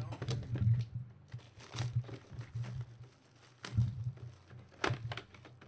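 Plastic shrink-wrap crinkling and tearing as a sealed cardboard box of 2012 Absolute Football trading cards is unwrapped and opened. Irregular crackles come with dull knocks of the box being handled and a few sharper clicks about four and five seconds in.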